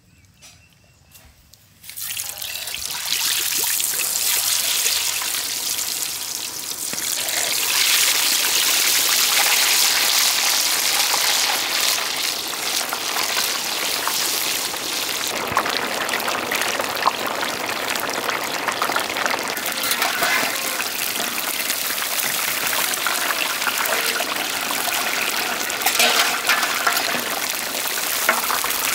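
Whole marinated country chickens deep-frying in a large pot of hot sesame (gingelly) oil: a loud, steady sizzle that starts suddenly about two seconds in.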